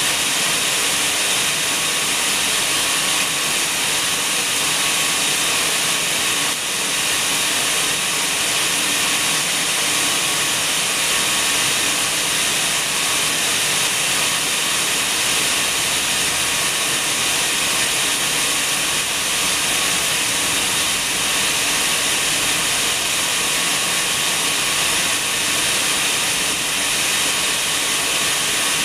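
A steady, bright hiss that never changes, with no other sound standing out.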